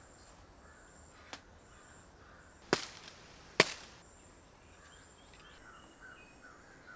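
Two sharp cracks about a second apart near the middle, over faint bird calls and a steady high hum in the background.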